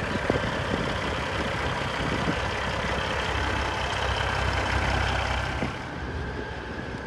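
Semi-truck diesel engine running with a steady low rumble, louder about halfway through and easing off near the end.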